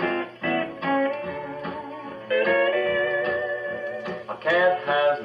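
Instrumental intro of a 1950 honky-tonk country record, led by guitar and steel guitar with sliding notes. It plays back through a tube-amp Wurlitzer jukebox, and the sound is narrow, with no high treble.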